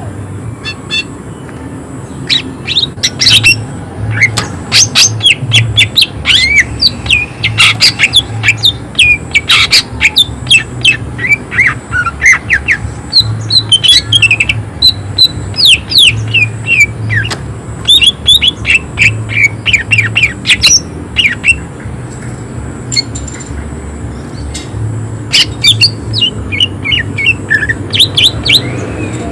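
Green leafbird (cucak ijo) singing in fast bursts of sharp, quick notes and short falling whistles, a harsh chattering 'shot' song; it pauses briefly about three-quarters of the way through. A steady low hum runs underneath.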